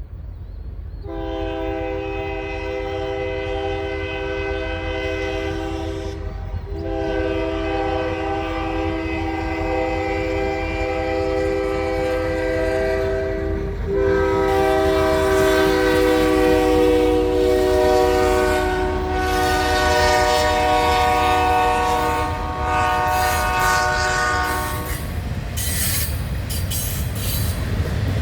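Diesel freight locomotive's multi-chime air horn blowing three long blasts, the last about ten seconds long, over the low rumble of the engines and rolling train, as it sounds for a road crossing. The horn stops a few seconds before the end, leaving the rumble and clattering wheels.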